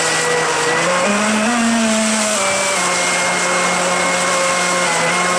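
Electric surfboard jet unit running hard in a test tub: a steady electric-motor whine over the churning of water being whipped into froth. The whine rises in pitch about a second in, then settles back and holds.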